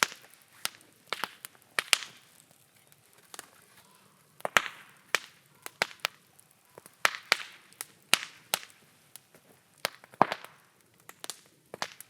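Open bonfire of scrap wood and damp logs crackling, with irregular sharp pops every half second or so and a few short hisses.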